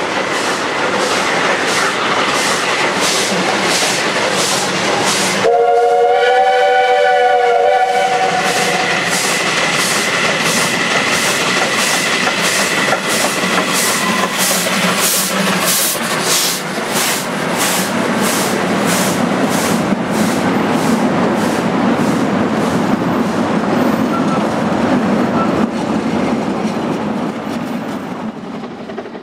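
Narrow-gauge steam locomotive working a train, its exhaust beating in a steady rhythm. About five seconds in, its whistle sounds a chord-like note for two to three seconds. The beats fade near the end as the train passes.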